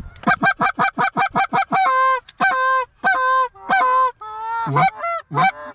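Hand-blown goose call: a fast, even run of short clucks, then several drawn-out honks, then more clucks near the end, calling to geese coming in to the decoys.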